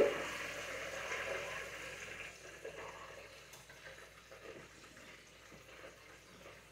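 Hot oil in an electric deep fryer bubbling and sizzling around a batch of battered catfish, fading away steadily as the frying basket is lifted out to drain, after a brief knock at the very beginning.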